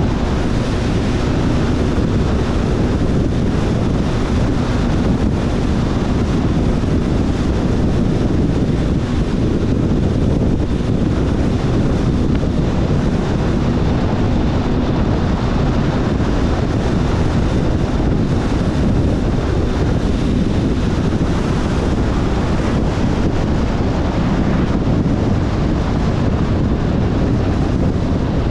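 Steady wind rush buffeting the GoPro's microphone on a moving motorcycle. The Kawasaki ZRX1100's inline-four engine runs underneath at an even pace, with no change in speed.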